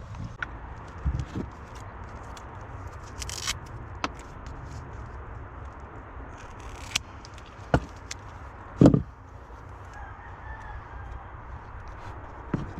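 Hands working on wiring and plastic connectors: scattered clicks and taps, a couple of brief rustles, and one louder thump about nine seconds in, over a low steady hum.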